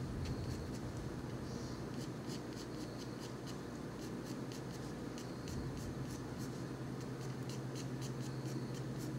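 Colored pencil shading lightly on paper: a run of short, gentle strokes, each a faint scratch, several a second. A steady low hum runs underneath.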